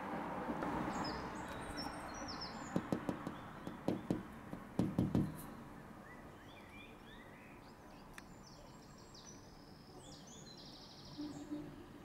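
Small birds chirping in short, high notes, early on and again through the second half, over a rumble of outdoor background noise that fades about halfway through. A quick run of sharp taps or knocks comes in three clusters near the middle and is the loudest thing.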